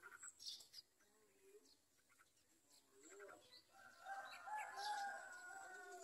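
Faint bird sounds: short high begging chirps from yellow-vented bulbul nestlings near the start, then a longer wavering call of about two seconds near the end, the loudest sound.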